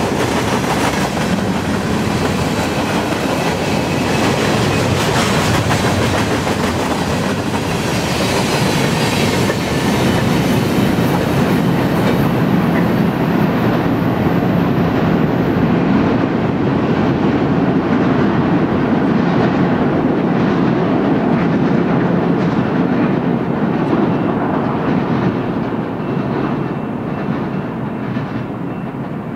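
Freight train cars (gondolas and covered hoppers) rolling past, a steady rumble of steel wheels with clicking over the rails. The train moves off partway through: the sound loses its high end and grows a little fainter near the end.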